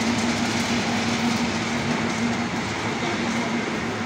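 Electric-motor-driven palm kernel oil expeller (screw press) running while crushing palm kernels: a steady, dense rattling clatter with a steady hum underneath.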